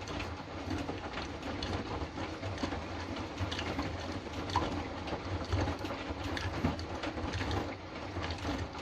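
Hotpoint washing machine in the main wash of a Fastwash 60 programme, the drum turning: a steady motor hum under many small clicks and knocks from the tumbling load.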